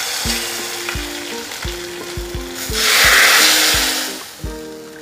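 Hot coconut-oil tempering of mustard seeds, dried red chillies and curry leaves sizzling as it is scraped from a small tempering ladle into a pot of sambar. The sizzling grows much louder about three seconds in, when the ladle is dipped into the sambar, then fades.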